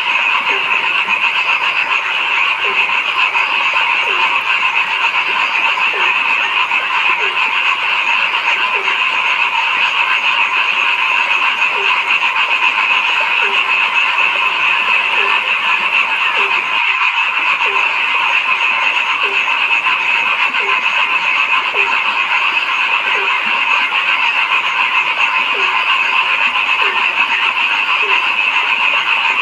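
Dense chorus of frogs calling steadily. A lower, short croak repeats about once a second through it.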